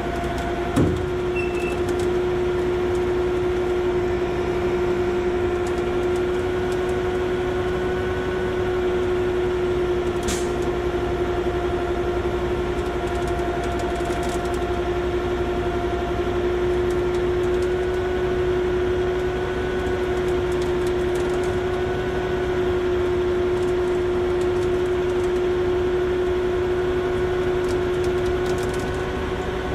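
A rotator tow truck's engine and hydraulic winch system running steadily under load, with a constant whine while the winch pulls a stuck semi-truck forward. A single sharp knock about a second in.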